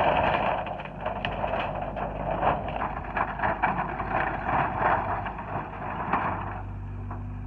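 Hyundai 60 excavator's diesel engine running steadily under loud crackling and crunching of wood framing and sheet metal being torn and crushed by the bucket, full of sharp cracks; the crunching stops about six and a half seconds in, leaving the engine alone.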